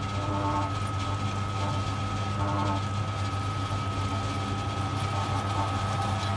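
Small metal lathe running steadily while a drill bit in the tailstock chuck drills into the end of a turning bolt: a constant motor hum with a steady high whine, and fainter tones from the cut that come and go about once a second.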